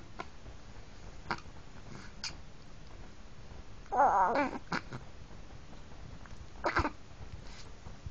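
A month-old baby's vocal noises: one loud, wavering squeal about four seconds in, a shorter grunt-like sound near seven seconds, and a few faint short noises in between.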